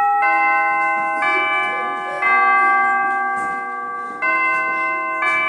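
Bell chimes ringing out a slow melody, one struck note about every second at changing pitches, each note ringing on under the next.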